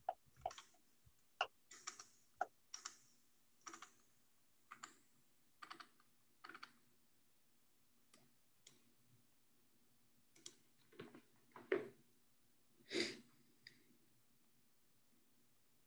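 Faint, irregular clicking and tapping of a computer keyboard and mouse, about one click a second with gaps, heard over a video-call microphone. A longer soft rustle comes about three-quarters of the way through, over a faint steady low hum.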